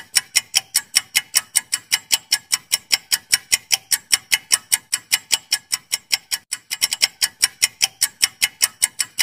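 Clock-ticking sound effect of a quiz countdown timer: sharp, even ticks at about five a second, marking the time left to answer, with a brief stumble in the rhythm about seven seconds in.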